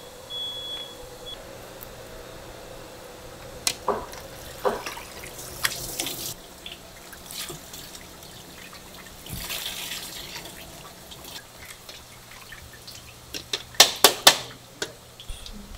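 Water splashing and dripping as thinly sliced raw fish is rinsed and drained in baskets and a steel bowl, with scattered light clicks of the baskets. Near the end comes a quick cluster of sharp knocks as a wicker basket is set down over the steel bowl.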